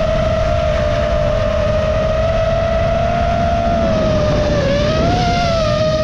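Small FPV quadcopter's motors and propellers whining steadily at a high pitch. The pitch sags and then rises again with a throttle change about four to five seconds in. A low rumble of wind buffets the onboard microphone underneath.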